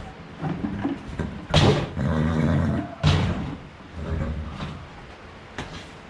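Metal clanks and bangs from galvanized trash cans used as feed bins as a lid is pulled off and set down and a plastic bucket is set against them. The two loudest bangs come about a second and a half apart, each ringing briefly, and a lighter knock follows near the end.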